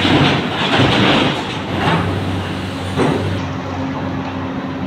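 Heavy diesel engines of an excavator and a tipper truck running steadily in a rock tunnel during mucking, with a few rough knocks and scrapes of rock being handled about a second in and again near three seconds.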